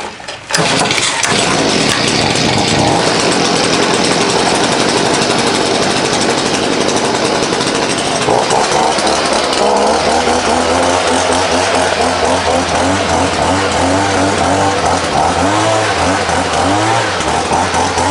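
Gas-powered leaf blower running at full throttle, blowing dust and debris off a porch floor. It comes on suddenly about half a second in, and from about eight seconds in its engine note wavers up and down with the throttle.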